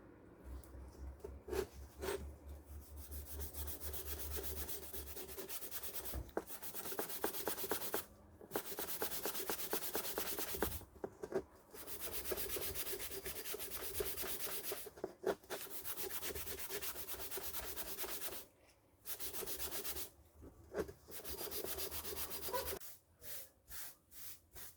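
Abrasive rubbing on the steel cold chisel, in runs of a few seconds with short pauses between them, like hand sanding.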